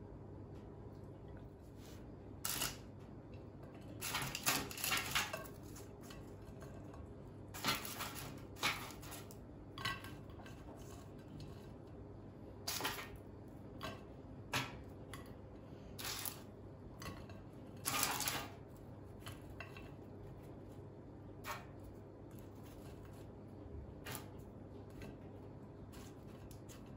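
Kitchen dishes and utensils clinking and clattering at irregular moments, with short bursts of handling, the busiest a few seconds in and again past the middle.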